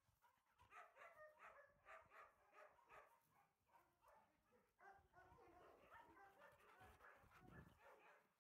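A dog barking faintly and repeatedly, about three barks a second, in two runs with a short pause in the middle.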